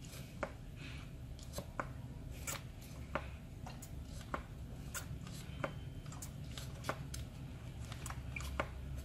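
Priming bulb on a Honda GX35 four-stroke engine being pressed over and over with the thumb: a steady run of soft clicks, about one every two-thirds of a second. Each press pumps fuel from the tank up to the carburettor to prime the new engine before its first start.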